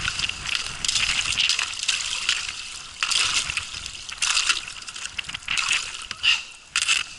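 Thick ice being hacked through by hand: repeated, irregular sharp strikes on ice, with chips crunching and clinking.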